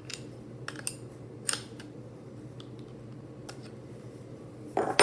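Light metallic clicks and taps of a wrench and router collet being handled while a router bit is tightened in, with a louder knock near the end. A faint steady hum runs underneath.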